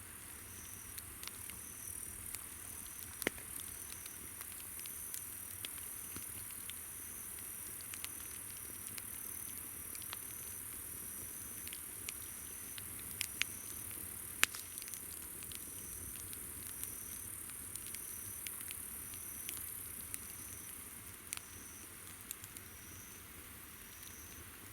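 Campfire crackling with scattered sharp pops, over a steady high-pitched drone of insects and a short insect chirp repeating a little more than once a second.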